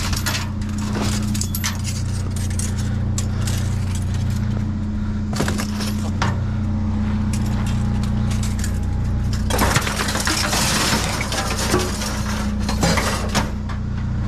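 Scrap metal clinking and rattling as trash in a dumpster is handled and sorted, with a stretch of louder scraping and rustling about ten seconds in. A steady low engine hum runs underneath.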